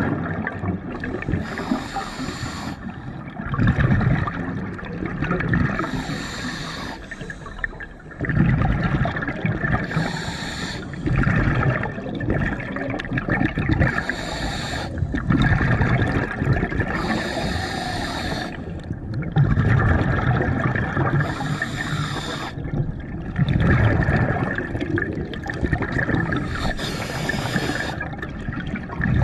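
Scuba diver breathing through a regulator underwater: a hissing inhale through the demand valve, then a louder rumbling burst of exhaust bubbles, six breaths several seconds apart.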